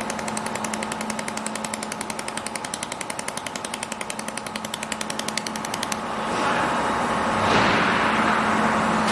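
400 W automatic laser welding machine firing rapid laser pulses, an even clatter of about ten clicks a second, which stops about six seconds in. A louder hissing noise then builds and holds.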